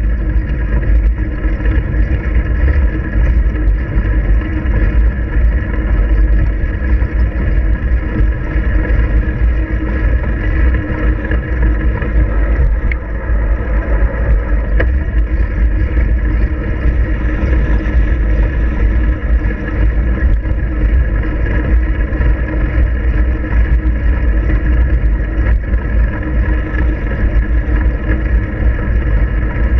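Steady, loud wind buffeting and road rumble picked up by a handlebar-mounted GoPro on a moving bicycle, heavy in the low end and unbroken.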